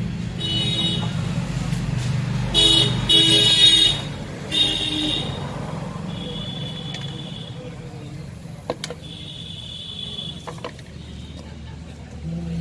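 A motor vehicle engine running steadily, then fading after about six seconds, with several short horn toots over it in road traffic.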